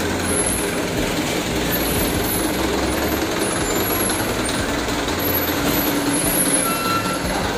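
Mitsubishi Canter box truck's diesel engine running steadily as the truck rolls forward past at low speed.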